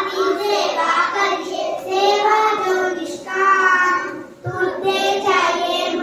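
A child singing a song solo into a microphone, unaccompanied, in long held and bending notes.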